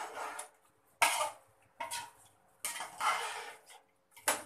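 Long metal spoon scraping and knocking against the inside of a large metal pot while stirring chicken in a thin, watery masala. It comes in about five separate strokes, with a sharp clink near the end.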